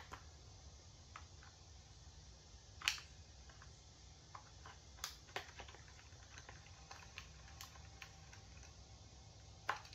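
Scattered light clicks and taps of a screwdriver and hands working screws out of an electric leaf blower's plastic housing to free the motor, over a low steady hum.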